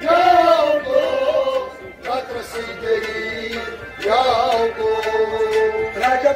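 Kashmiri Sufi ensemble music: tabla strokes keep a rhythm under a melody line that glides up and down.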